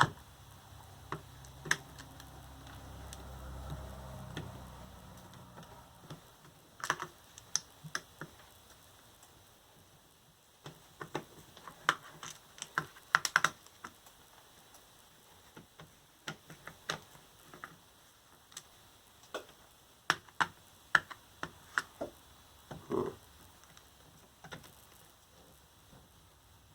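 Irregular small clicks and taps of a screwdriver working tiny screws out of the plastic cell holders of a lithium-ion scooter battery pack, with light handling of the plastic parts.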